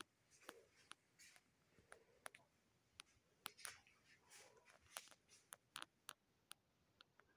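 Near silence: quiet room tone with faint, irregular sharp clicks and ticks scattered throughout.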